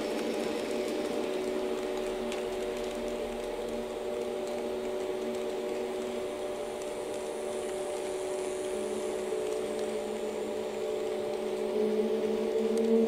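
HO-gauge model train running on a layout: a steady electric hum made of several low tones with a light hiss over it, getting louder near the end.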